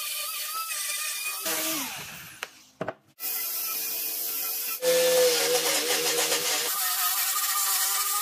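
Electric angle grinder with sanding attachments running against wood, smoothing curved edges, with a steady motor whine and the rasp of abrasive on wood. The pitch slides down briefly, the sound drops out for a moment, and the whine then changes in pitch and loudness a few times.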